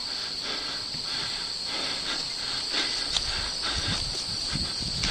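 Insects chirring steadily in a high, even drone, with faint scattered clicks and rustling underneath.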